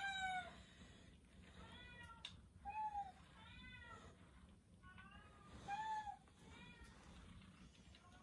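A cat meowing repeatedly, about seven short, high, arched meows spread over eight seconds.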